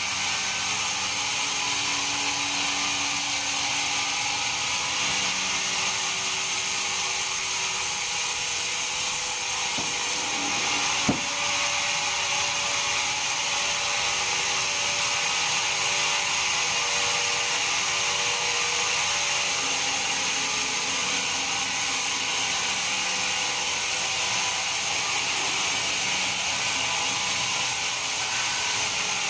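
Band sawmill running steadily through a big pine log, a continuous high-pitched machine noise, with a single sharp click about eleven seconds in.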